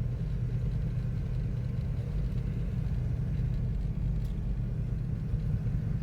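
Motor vehicle running steadily: an even, low rumble.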